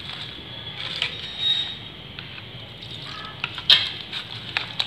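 A hand mixing gram-flour (besan) batter in a bowl: irregular wet slaps and light clicks over a steady hiss, with one louder click late on.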